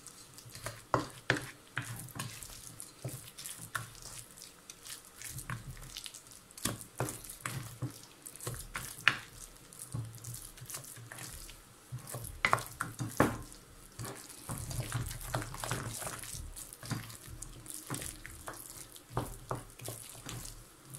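A thick, wet sweet-potato and almond filling being mixed in a glass bowl: irregular soft squelches with short knocks and clicks against the glass.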